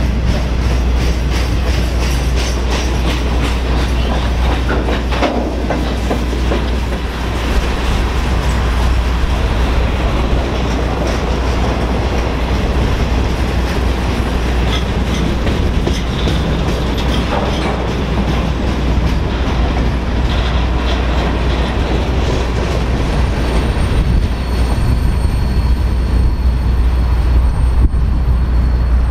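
Freight train of boxcars rolling past close by: a steady rumble of wheels on rail with clicking over the rail joints. A thin, steady high-pitched whine comes in near the end as the last cars go by.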